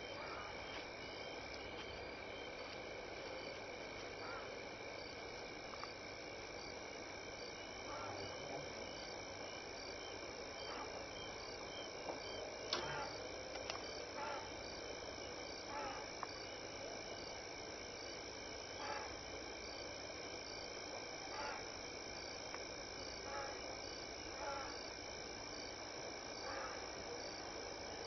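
Night chorus of frogs and insects: a steady high insect trilling with a regular quick chirping, while frogs give short calls every second or two.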